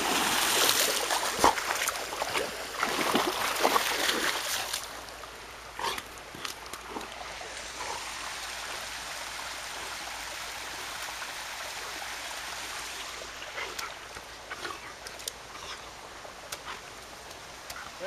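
Water splashing hard and close for about the first five seconds, then a small woodland stream running steadily, with scattered small splashes and knocks.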